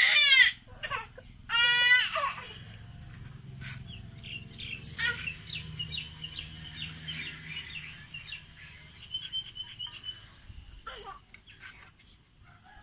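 A goat bleating twice in quick succession, then small birds chirping for several seconds.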